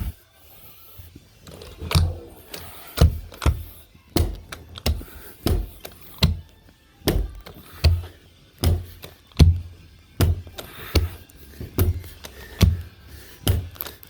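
A series of dull thumps, about one or two a second, from carpet installation work, with faint radio music underneath.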